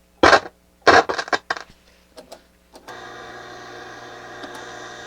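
Pushbutton switches on a Harman Kardon 730 receiver clunking several times. About three seconds in, a steady hum with hiss comes from the speakers as the AM tuner is switched in.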